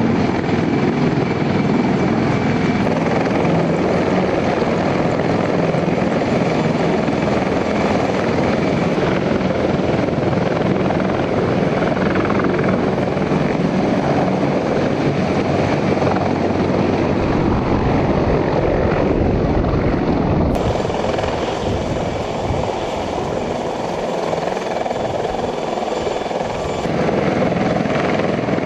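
Sikorsky CH-53E Super Stallion heavy-lift helicopter, its rotor and three turbine engines running in a loud, steady din. The sound changes abruptly about two-thirds of the way through.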